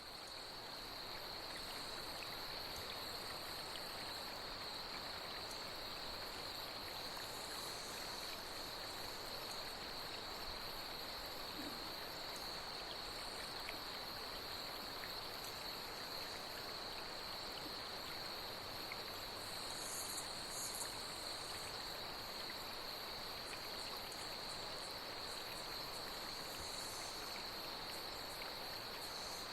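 Night insects trilling in a steady, unbroken high chorus over the soft rush of flowing water, fading in at the start. A few brief higher chirps come about two-thirds of the way through.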